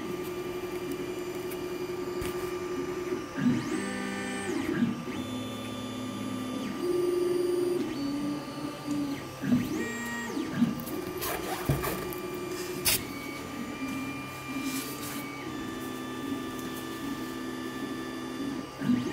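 Creality Ender 3D printer running a print: its stepper motors whine in held tones that jump and glide to new pitches every second or so as the print head changes moves, over a steady hum.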